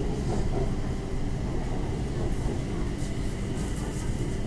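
BTS Skytrain carriage running along the elevated track, heard from inside the car: a steady low rumble with a thin, constant whine above it.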